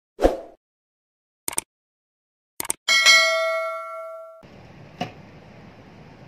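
Subscribe-button animation sound effects over dead silence: a short pop, a few mouse clicks, then a bright bell-like notification ding that rings out for about a second and a half. Faint room hiss returns afterward, with one more click.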